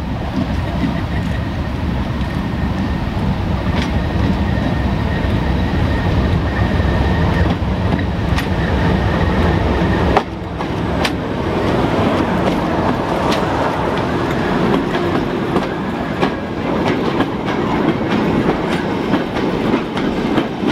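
A train running on the rails, with a steady rumble and scattered sharp clicks. About halfway through the sound changes abruptly: the deep rumble drops away and a rattling middle range takes over.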